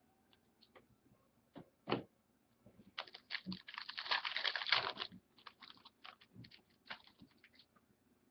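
Trading-card packaging and cards being handled: scattered small clicks and rustles, with a dense crinkly rustle lasting about two seconds through the middle, typical of a foil card pack being opened.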